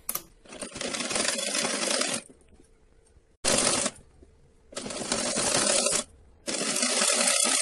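Domestic sewing machine stitching through thick quilted fabric in four short runs, stopping briefly between each.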